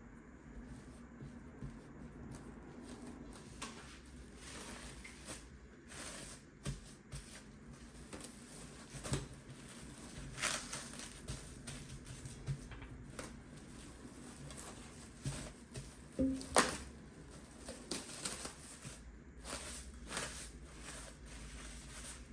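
Irregular clicks and knocks of objects being handled and set down, with one louder knock about sixteen seconds in.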